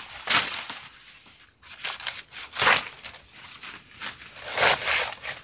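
Undergrowth being slashed with a machete: crunching, swishing strokes through vegetation, the three loudest about two seconds apart with smaller ones between.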